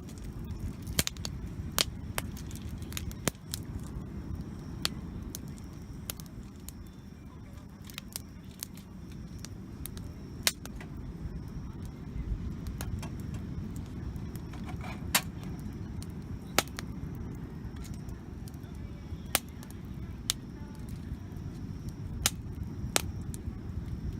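Wood campfire burning, with irregular sharp pops and cracks from the burning wood over a steady low rumble.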